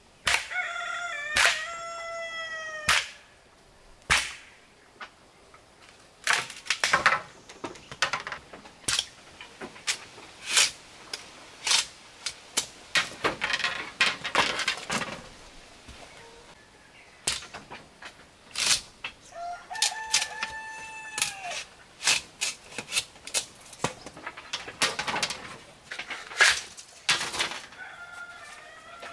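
Rooster crowing: one long call about a second in and another about two-thirds of the way through. Between and around the crows come frequent sharp clicks and snaps.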